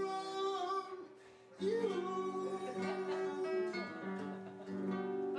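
A song: acoustic guitar with a singing voice, breaking off briefly about a second in before carrying on.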